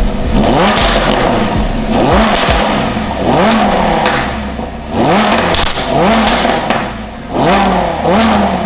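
Lamborghini Huracan's V10 engine being revved in repeated quick blips from behind its exhaust tips, each a fast rise and fall in pitch, roughly one a second.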